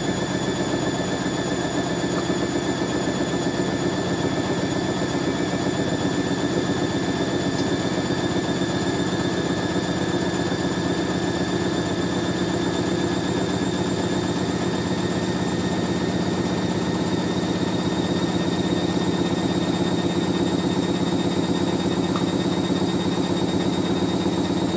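Hoover A3060 Electronic 1100 washing machine spinning: the drum motor runs steadily at speed, giving a high whine over a lower hum.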